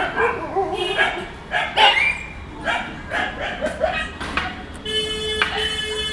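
Street dogs barking in a string of short, repeated barks. A vehicle horn sounds one long steady note near the end.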